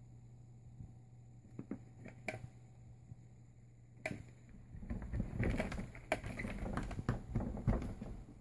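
A cat pawing and scratching at the edge of a sliding closet door, the door knocking and rattling in its frame: a few separate taps, then from about five seconds in a rapid flurry of scratches and knocks.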